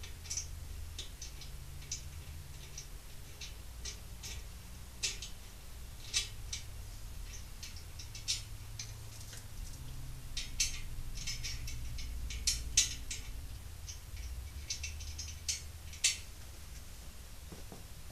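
Irregular metallic clicks and clinks of hand tools, scattered through and thickest in a cluster past the middle, over a low steady hum: the nuts on the four studs holding the engine's adapter plate to the transmission bell housing being tightened.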